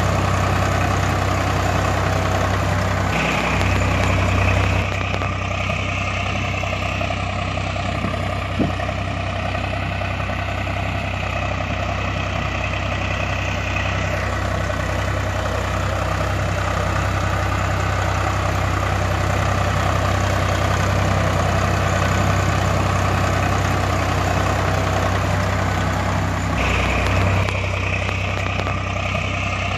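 A large tractor's engine running steadily, a low even hum with a pulsing undertone. Its character changes abruptly a few times, about 3, 5, 14 and 27 seconds in, as at edits in the sound track.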